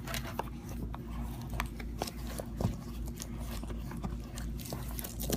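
Scattered small clicks and taps of objects being handled, over a steady low hum.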